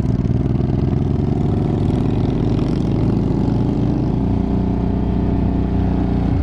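Motorcycle engine running as the bike rides along the road, its pitch shifting a little with the throttle.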